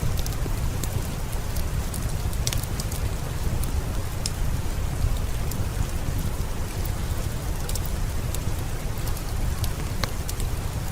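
Heavy rain falling steadily, with a deep low rumble underneath and scattered sharp ticks and pops.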